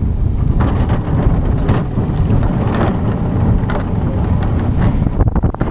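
Heavy wind buffeting the microphone of a camera riding the front of a moving steel roller coaster, over the low rumble of the train on its track, with a few brief knocks.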